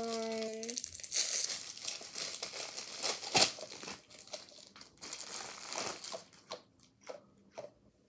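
Clear plastic packaging crinkling and tearing as a small fidget ball is unwrapped, dense crackling with a few sharp loud crackles in the first half, thinning to scattered rustles near the end.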